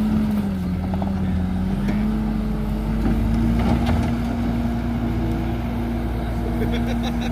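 A bulldozer's diesel engine running steadily, its pitch sagging briefly about half a second in and picking back up within a couple of seconds as it takes and sheds load, with a few scattered knocks and clatters.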